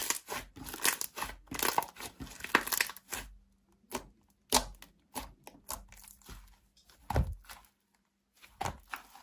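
Slime being squeezed and stretched by hand, making irregular clusters of crackling, popping clicks with short quiet gaps.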